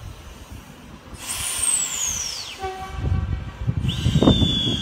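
Intercity V-set double-deck electric train at the platform: a high whistling tone slides steeply down in pitch about a second in, a second whistling tone falls more gently near the end, and a low rumble builds from about three seconds in.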